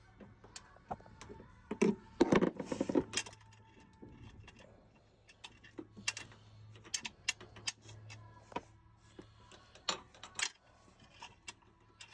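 Scattered clicks and metallic rattles of hand tools and small door-latch parts being handled, with a louder clatter about two to three seconds in, over a faint steady low hum.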